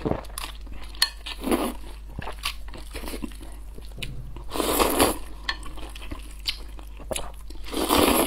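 A person eating noodles close to the microphone: wet chewing with many short crunchy bites, broken by three longer slurps of noodles, about a second and a half in, around the middle, and loudest near the end.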